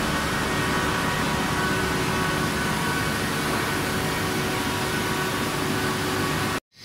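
Steady hum of running workshop machinery, with several steady tones over an even noise. It cuts out abruptly just before the end.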